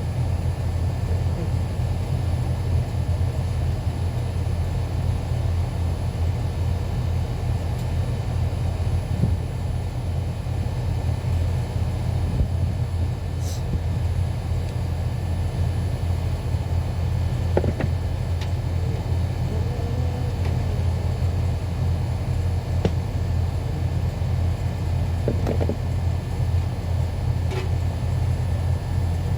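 A steady low rumble, with a few faint knocks and faint voices in the background.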